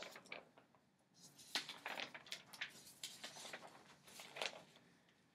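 Sheets of paper being handled, rustling and crinkling in a string of faint crackles from about a second in.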